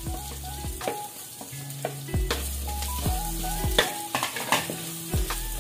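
Garlic and onions sautéing in hot cooking oil in a pan, sizzling, with a utensil stirring and knocking against the pan again and again, over background music.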